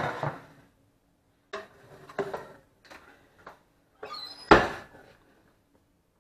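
Metal roasting dish and oven rack clattering and scraping as the dish goes into the oven, then the oven door shut with one loud bang about four and a half seconds in.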